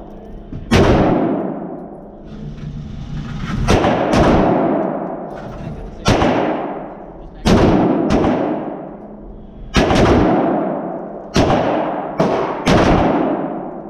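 AR-15 rifle fired about eight times at an uneven pace, each shot a sharp crack followed by a long echoing decay in an indoor range. Three of the shots come close together near the end.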